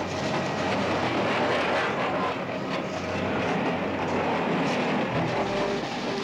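Steam train passing at speed: a steady noise of the locomotive and its cars going by, loudest about a second and a half in.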